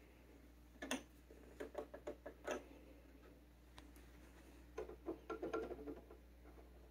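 Faint clicks and light knocks from handling a Micro Seiki MB-12 turntable as its dust cover is raised and its tonearm is taken from the rest: a sharp click about a second in, a few more soon after, and a quick cluster of small clicks near five seconds in.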